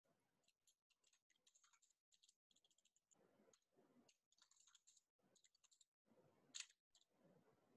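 Near silence with faint computer-keyboard keystrokes, and one slightly louder click about six and a half seconds in.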